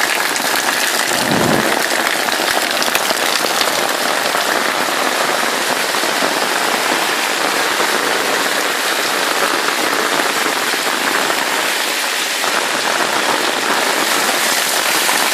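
Heavy rain pouring down hard and steadily, a dense even hiss of drops hitting the ground.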